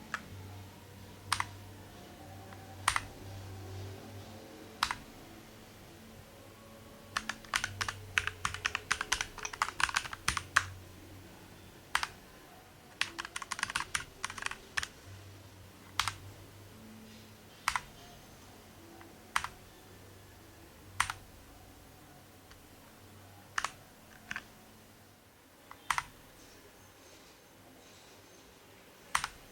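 Keys on a Keychron mechanical keyboard being pressed: single sharp keystrokes every second or two, with two short runs of rapid typing partway through.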